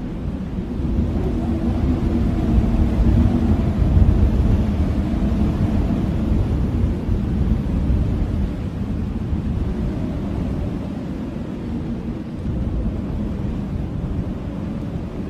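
Strong blizzard wind blowing in a low, rumbling rush, swelling into a gust a few seconds in, then easing back.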